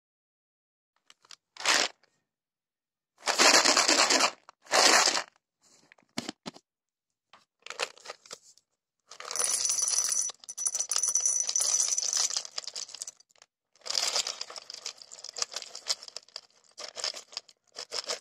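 Roasted peanuts rattling and clattering as they are poured between a plastic jar and a bowl, in several separate bursts. The longest run, about nine to thirteen seconds in, carries a faint thin squeak over the rattle.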